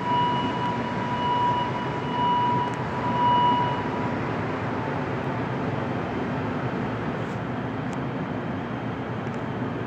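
Rubber-tyred Montreal Metro train pulling out of a station: a steady rumbling run with a steady high whine for the first few seconds, then mostly rumble as it rolls away.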